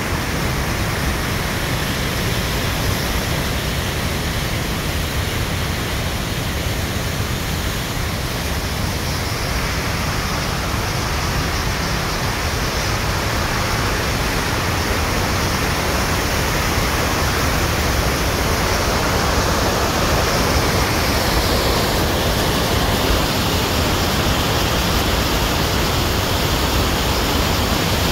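White-water mountain torrent rushing over rocks: a steady, loud roar of water that grows a little louder in the second half.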